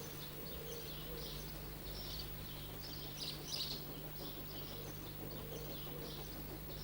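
Faint birdsong, short chirps repeating in quick clusters, over a steady low hum.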